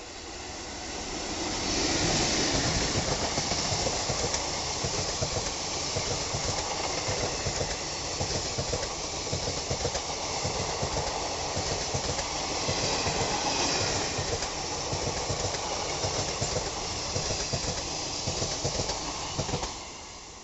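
Passenger train hauled by a WAP-4 electric locomotive passing. The sound swells as it arrives about two seconds in, then holds as a steady clickety-clack of wheels over rail joints under a rushing hiss, and cuts off sharply near the end.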